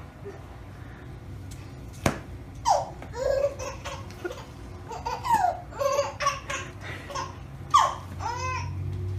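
A baby laughing in short repeated bursts of giggles, with a sharp click about two seconds in.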